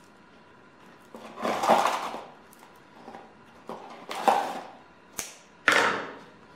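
Handling noises as a raw chicken is trussed with kitchen string: three short scraping, rustling sounds and one sharp click.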